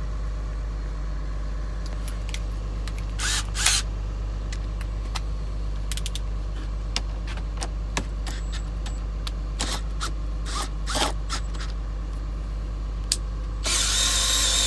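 Steady low engine hum, like a vehicle idling, under scattered clicks and scrapes of tools being handled, with a short hiss lasting about a second near the end.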